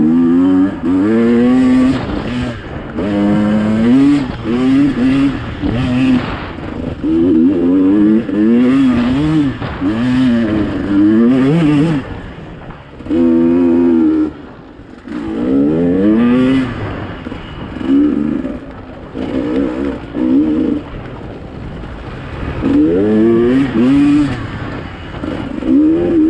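Dirt bike engine revving up and down over and over as the throttle is opened and closed, with a few brief dips where it backs off.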